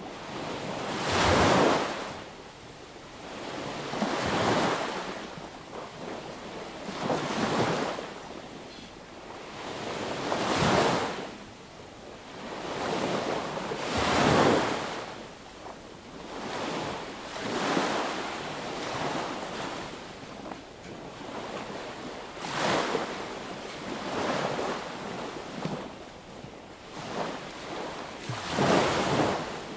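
Sea waves washing onto the beach, the surf swelling and falling back every three seconds or so, with bigger breaks about a second in, around ten and fourteen seconds, and near the end.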